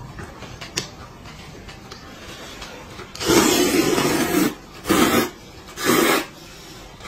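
A man slurping noodles from a cup of broth: one long, loud slurp about three seconds in, then two shorter slurps about a second apart, and another starting at the very end.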